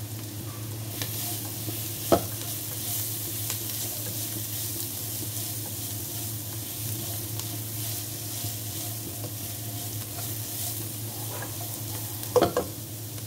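Shredded vegetables stir-frying in a nonstick wok: a steady sizzle with the scraping and tossing of a spatula. There is a sharp knock about two seconds in and a couple of knocks of the spatula against the pan near the end, over a steady low hum.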